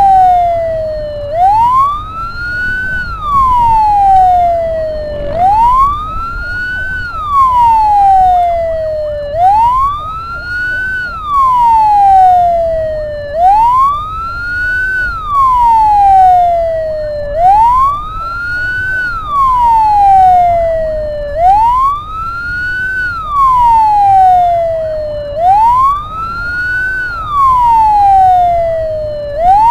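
Ambulance siren wailing: each cycle sweeps quickly up in pitch and then falls slowly, repeating about every four seconds, over a steady low engine and road rumble.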